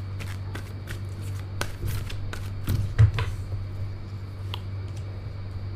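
Tarot deck being handled and shuffled, with scattered soft card clicks and a louder knock about three seconds in, over a steady low hum.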